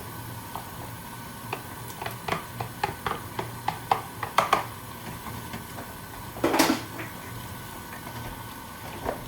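Utensil and pot clinking as chopped tomatoes are added to the cooking chicken: a run of light clicks and taps, then one louder clatter about six and a half seconds in.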